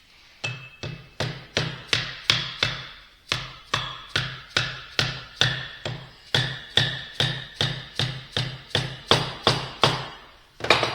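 Steady hammer taps, about three a second, metal on metal with a short ring after each, driving the shaft-seal keeper down into a Vickers V45 vane pump housing.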